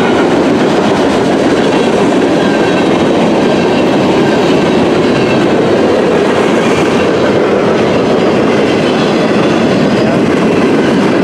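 Freight cars of a mixed freight train (tank cars, covered hoppers and boxcars) rolling past close by: a loud, steady rumble of steel wheels on the rails.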